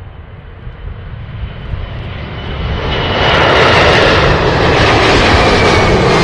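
Boeing 747 freighter's four jet engines at takeoff power as it climbs out: a deep rumble that grows much louder about three seconds in, with a high fan whine that slowly falls in pitch.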